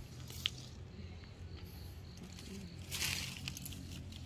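Faint rustling and shuffling of someone moving among potted plants on stony ground, with a louder rustle about three seconds in and a short high chirp about half a second in, over a low steady hum.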